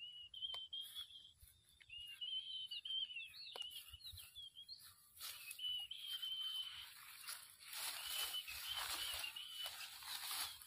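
A bird singing a thin, wavering high song, with footsteps rustling and crunching through dry grass and brush; the footsteps grow louder and more frequent from about halfway through.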